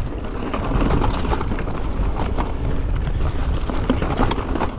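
Mountain bike riding over rocky, chunky trail: a steady low rumble with frequent clatters and knocks from the bike.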